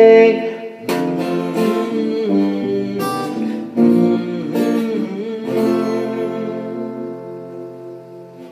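Acoustic guitar playing the closing chords of a song: a few separate strums, then a last chord left to ring and fade out.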